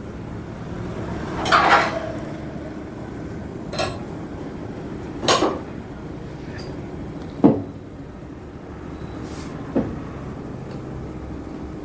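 Tyre changing machine working a tyre off its rim: five irregular metal clanks over a steady low hum.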